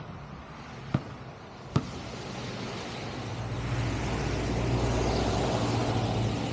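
A basketball bouncing twice on pavement, then a car driving past, its engine and tyre noise swelling and slowly fading.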